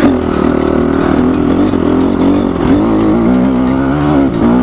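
Honda CRF250R motocross bike's single-cylinder four-stroke engine running under throttle. Its revs rise and fall, with a brief drop about three seconds in and again near the end.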